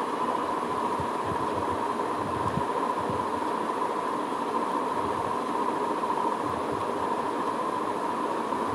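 Steady background noise: an even hiss with a constant mid-pitched hum, unchanging throughout.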